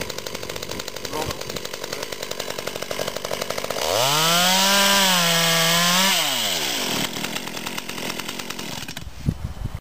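Small Stihl two-stroke chainsaw idling with a quick, even pulse, then revved to full throttle for about two seconds as it makes a test cut through a branch with a newly fitted, freshly tensioned chain. It then drops back to idle.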